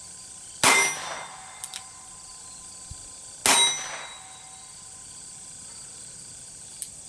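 Two shots from a Smith & Wesson Model 53 revolver firing .22 Long Rifle rounds through chamber inserts, about three seconds apart, each with a short ringing tail. Light clicks from the action come between them.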